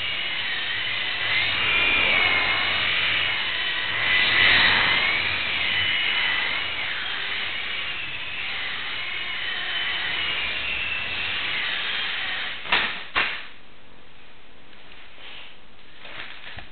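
Blade mSR micro RC helicopter's electric motor and rotor whining, the pitch wavering up and down as the throttle changes. About thirteen seconds in come two sharp knocks, and the whine stops.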